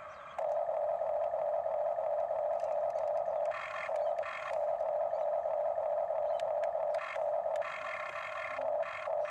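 Huina remote-control toy excavator's electric motors whining steadily as the boom and bucket move, the tone shifting briefly a few times as different motors switch in and out.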